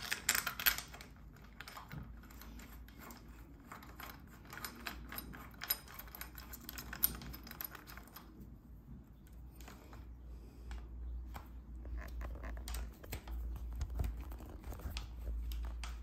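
Rapid small clicks and taps from a handlebar stem faceplate and its bolts being fitted by hand, with the bike's cables knocking against the bar. The clicks are densest in the first half, and low bumps build up in the second half.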